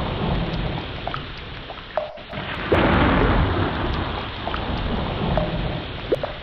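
Heavy rain falling steadily with a deep rumble of thunder underneath; the rumble swells again about two and a half seconds in.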